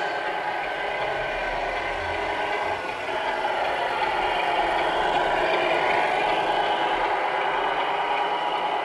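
Tamiya Scania R470 radio-controlled truck with tanker trailer driving, its motor running with a continuous pitched sound. About three seconds in, as the truck comes close, the sound grows louder and rises and falls in pitch.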